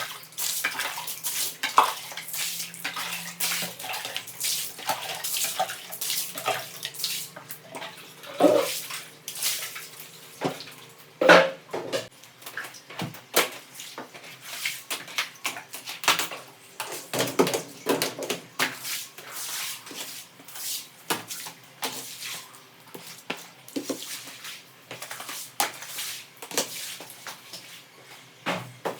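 Water splashing and sloshing during household cleaning, with scrubbing and irregular knocks and clatters throughout.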